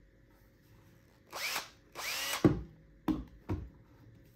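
Makita 6347D 18V cordless drill's motor run twice, each time spinning up in pitch and winding down, then two short trigger blips. It is a test run after the carbon brushes have been replaced.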